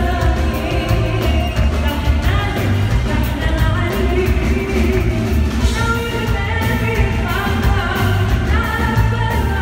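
Two female singers performing live with a band of electric guitar, drum kit, hand drum and keyboard, over a heavy, steady bass beat, heard from within the audience.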